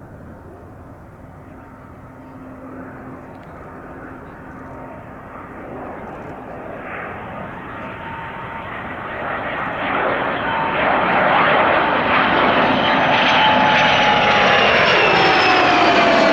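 Aircraft flying past, growing steadily louder as it approaches. Its engine whine holds steady, then starts to drop in pitch near the end as it passes.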